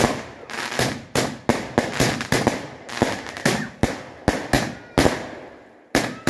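A multi-shot firework cake firing in rapid succession: a sharp bang about three to four times a second, each shot fading out with a crackle. There is a short pause about five seconds in before the shots resume.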